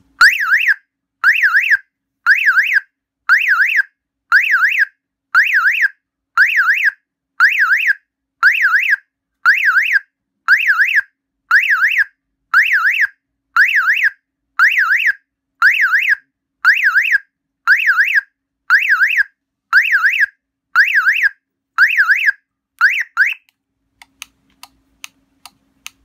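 Car alarm siren horn of an Omega Cobra auto security system, set off by a tap on its shock sensor, sounding loud pulses of a fast warbling tone about once a second. The pulses stop a couple of seconds before the end, followed by a few faint short clicks.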